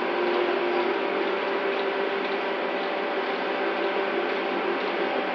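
Ship's crane hoist machinery running steadily while a lifting spreader beam hangs on its wires, a constant mechanical drone with a few steady tones over an even noise.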